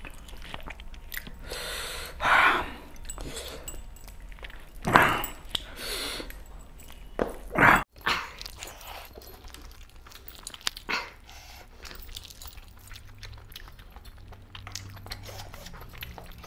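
A man eating meat with his hands close to the microphone: wet chewing and lip-smacking with many small clicks, and a few louder mouth noises about 2, 5 and 7.5 seconds in.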